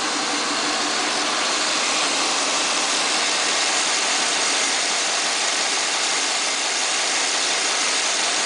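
The V8 engine of a 2010 Camaro fitted with a Vararam ram-air intake idles steadily, heard close to the open engine bay. It is a smooth, even idle, heard mostly as a steady rush.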